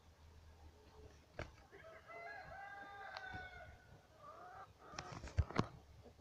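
A chicken gives one long, drawn-out, crow-like call lasting about two seconds, then a shorter rising call. A few sharp knocks near the end are the loudest sounds.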